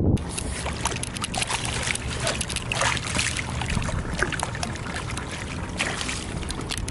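Water splashing and dripping as a hooked striped bass thrashes at the surface and is scooped up in a landing net, many small splashes and drips over a steady low hum.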